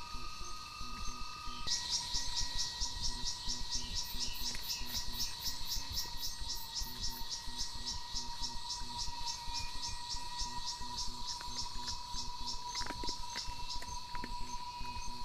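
Insects calling in a rhythmic pulsed trill, about five pulses a second, starting about two seconds in over a steady high insect drone. A few faint clicks come near the end.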